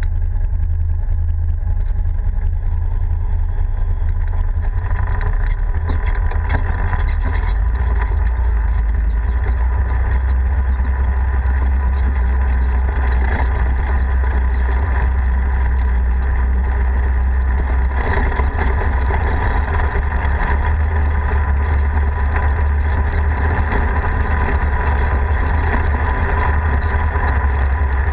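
Polaris RZR side-by-side running steadily as it drives along a rough dirt road, with a constant low rumble.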